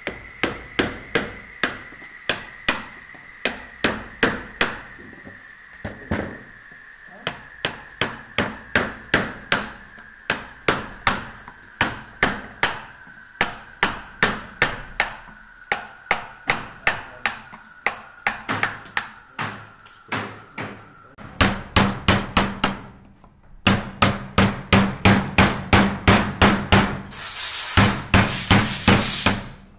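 Mallet blows driving a carving chisel and gouge into the wood of a chair leg, a steady run of sharp knocks at about two to three a second, with a short break about two-thirds of the way through and then a quicker run.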